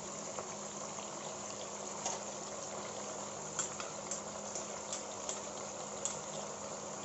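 Chicken pieces frying in oil in a karahi: a steady bubbling sizzle with a few faint pops, the meat still giving off its water over a medium-to-high flame.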